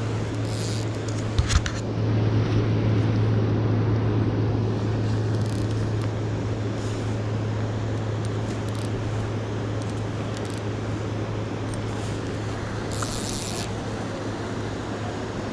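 Steady rushing of river water, with two sharp knocks about a second and a half in and a brief high hiss near the end.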